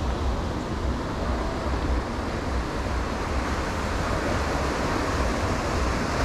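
Steady wash of sea surf breaking on a rocky reef, with wind rumbling on the microphone.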